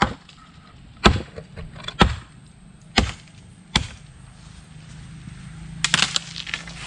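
A dead branch on the ground being chopped with a blade: five sharp chopping strokes about a second apart, then a quick cluster of cracks near the end.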